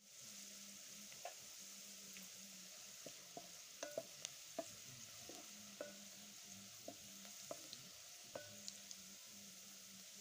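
Chopped red onions sizzling in hot oil in a metal pot, with a wooden spoon scraping and knocking against the pot as they are stirred.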